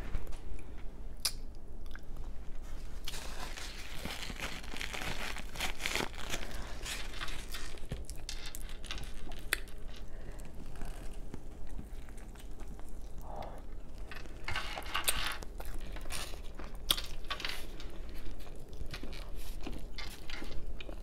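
A person chewing and biting into an air-fried chicken drumstick, with crunches and many sharp clicks from the mouth and from meat pulled apart by hand.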